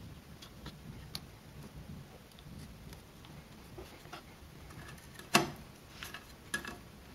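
Small scattered clicks and taps of a hand handling circuit-board parts and wiring inside a metal amplifier chassis, with one sharper click a little past five seconds in and a smaller one about a second later.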